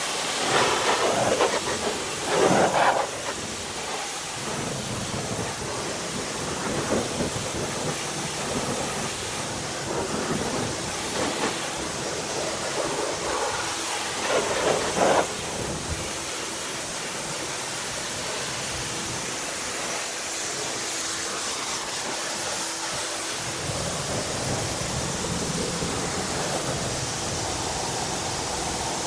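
Steady hiss of a pressure washer's water spray on a wheel and tire, with a few louder spells near the start and about fifteen seconds in.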